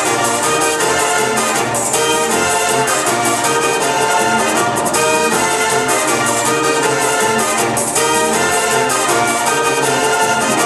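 Loud Latin dance music with a brass section of trumpets and trombones, played over a DJ's sound system.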